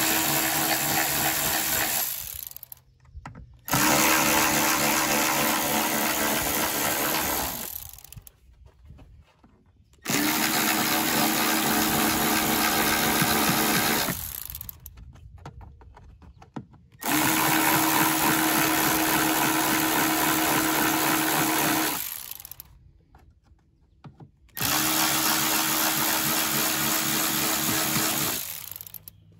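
Cordless electric ratchet with a Torx bit, running in five separate runs of about four seconds each with short pauses between them, as it backs out the screws of a fuse box cover. Each run holds one steady pitch.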